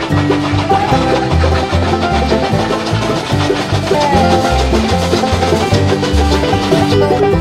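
Lively instrumental background music with a steady bass beat.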